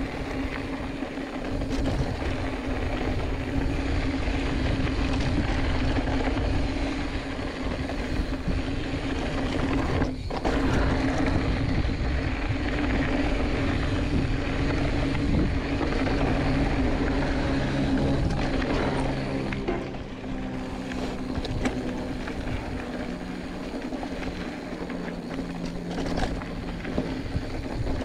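Giant Fathom 2 hardtail mountain bike riding fast over loose, rocky desert trail: tyres crunching on gravel and the bike rattling over stones, with wind rumbling on the chest-mounted camera's microphone.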